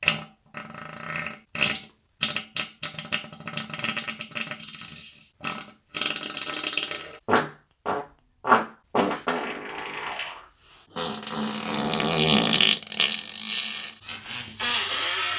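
A run of human farts: many short separate blasts with gaps between them, then a longer, drawn-out fart over the last few seconds.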